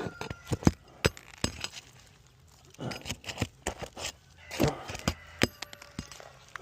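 A metal tool clinking and scraping against roofing nails and brittle asphalt shingles as the nails are pried out one by one, in irregular sharp clicks and cracks.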